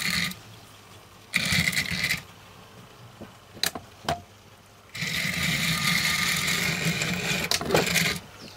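Motor and gears of a Trix 00 gauge Collett 5600 tank locomotive running roughly on test track, in two bursts: a short run about a second in and a longer one from about five seconds in, with a few sharp clicks in between. The locomotive had been a non-runner and is in need of a service.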